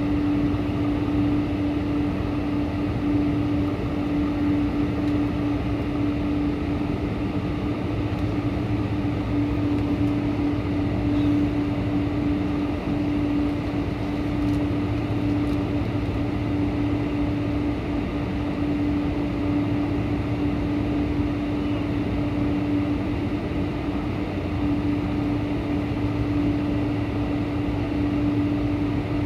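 Steady cabin noise of a Boeing 747-400 with four Pratt & Whitney PW4056 engines running: an even rushing with a constant low hum over it, unchanging throughout.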